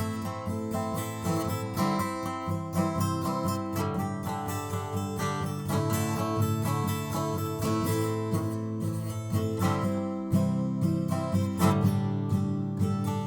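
Background music led by strummed and plucked acoustic guitar.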